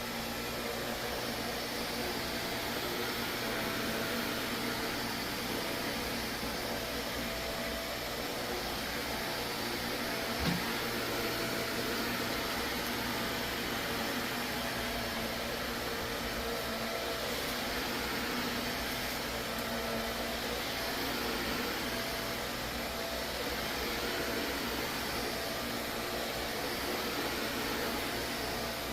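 Vacuum cleaner running steadily at an even level, with a single short click about ten seconds in.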